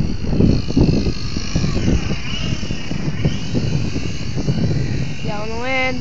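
Strong gale buffeting the microphone in a steady, gusty rumble, with the faint wavering whine of a radio-controlled model plane's propeller and motor overhead. A person's voice speaks briefly near the end.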